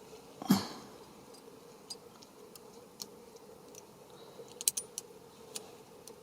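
Light plastic clicks and taps as a car's power window switch is handled and pressed back into place, with the loudest knock about half a second in and a quick cluster of clicks near the end.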